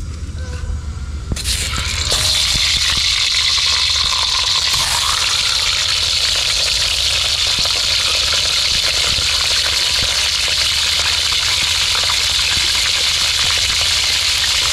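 Fish frying in hot oil: a loud, steady crackling sizzle that starts about a second and a half in.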